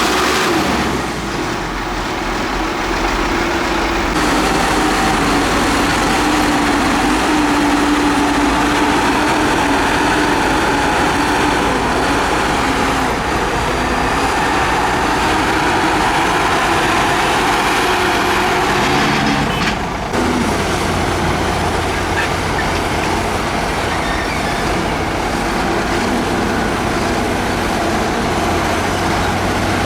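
Heavy construction machine's diesel engine running steadily, with a change in its note and a deeper tone coming in about twenty seconds in.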